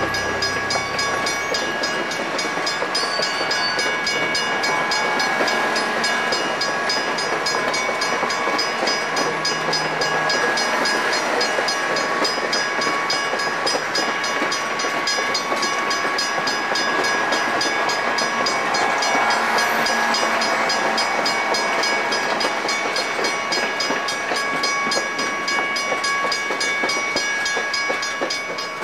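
Napa Valley Wine Train passenger cars rolling past on the rails: steady wheel and rail noise with several high, ringing tones held throughout, easing off near the end as the last car goes by.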